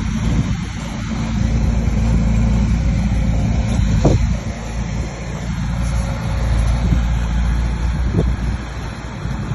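Bulldozer's diesel engine running steadily, with a couple of sharp knocks, one about four seconds in and another near the end.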